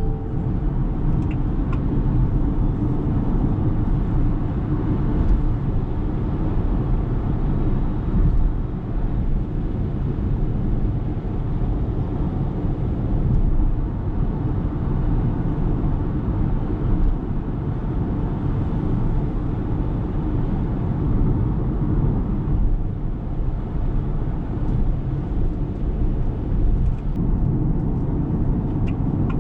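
Electric car driving, its steady low road and tyre rumble the main sound, with no engine note.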